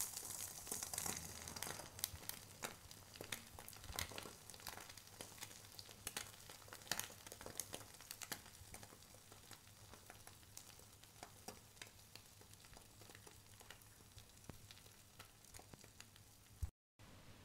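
Beaten eggs frying as an omelette in a nonstick pan: faint sizzling with scattered crackles and pops, thicker at first and thinning out as the egg sets, over a low steady hum.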